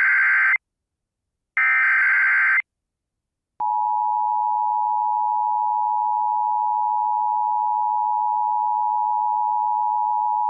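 Emergency Alert System tones for a tornado warning. First come the last two of the buzzy digital header bursts, each about a second long and a second apart. About three and a half seconds in, the steady two-tone attention signal starts and holds.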